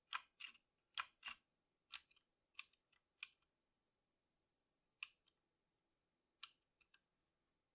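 Keys of a MotoSpeed 104CK mechanical keyboard with clicky Outemu Blue switches being pressed one at a time. Single clicks come about once a second at first, then two more strokes a second or so apart before it stops.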